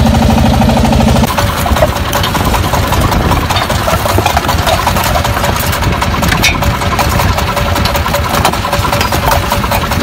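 Small fishing boat's engine running with a steady fast chugging beat. About a second in, the steady hum over it stops and the sound turns rougher and noisier.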